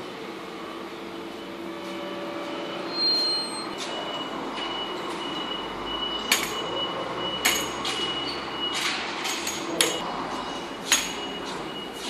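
Steady outdoor background noise with a thin, high, steady whine setting in a few seconds in, and four sharp clicks or knocks spread through the second half.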